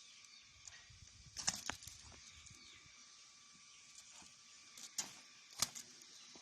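A few sharp taps and clicks: a quick cluster about a second and a half in, then two more near the end, over a faint steady hiss.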